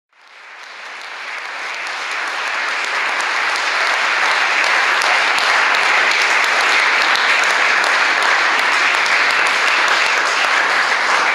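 Audience clapping: the applause builds over the first few seconds, then holds steady.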